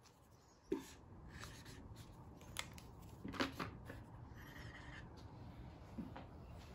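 Dry-erase marker writing on a small whiteboard: faint scratchy strokes forming letters, with a short tap near the end as a dot is marked.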